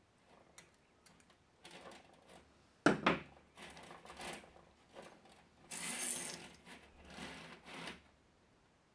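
A metal shower hose and its chrome end fittings handled and worked by hand: small clicks, then rubbing and scraping of the coiled metal hose. One sharp metallic clank about three seconds in is the loudest sound.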